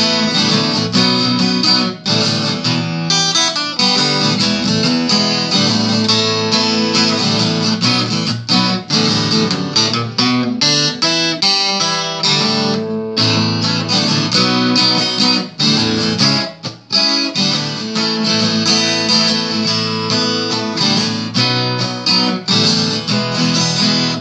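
Acoustic guitar strummed and picked through an instrumental break with no singing: chords ringing steadily, with a couple of brief lulls.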